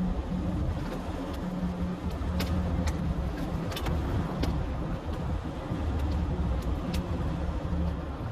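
Heavy truck engine running steadily, with a haze of road or running noise and a few sharp clicks or rattles about two to five seconds in.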